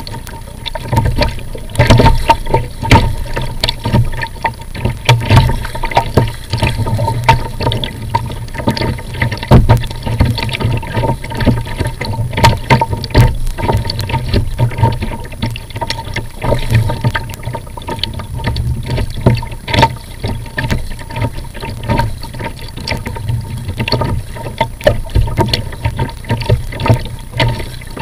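Water slapping and splashing against a plastic sit-on-top kayak's hull and paddle blades dipping as it is paddled through choppy water: loud, irregular splashes and knocks with no steady rhythm.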